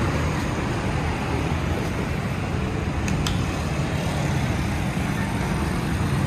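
Steady road traffic noise: a dense, continuous rumble of passing vehicles.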